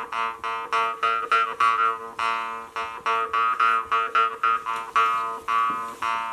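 Jew's harp (drymba) being played: a steady buzzing drone plucked about three times a second, with a melody of shifting overtones shaped by the player's mouth.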